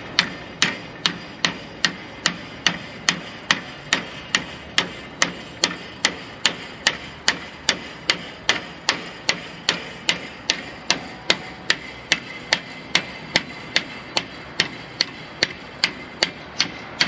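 Steady, rapid hammer blows on the steel slider lock of a semi truck's fifth wheel, about two and a half strikes a second, each a sharp metallic clank. The blows are forcing home slider locking pins that are hard to engage.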